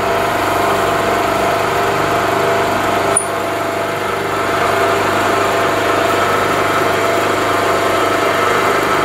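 Milling machine running steadily with a reamer in its spindle, reaming a valve guide bore in a cylinder head, with a single click about three seconds in.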